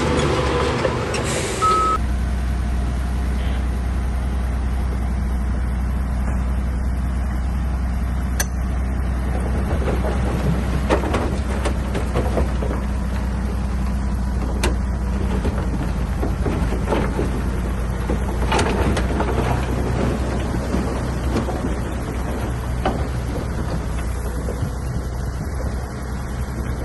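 Bulldozer's diesel engine running steadily at a deep drone, with scattered sharp clanks and knocks. A louder rushing hiss stops about two seconds in.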